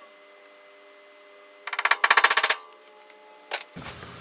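A hammer rapidly tapping a nail against a stainless steel tabletop to center-punch a drilling mark: a quick burst of closely spaced metallic taps lasting under a second, about two seconds in.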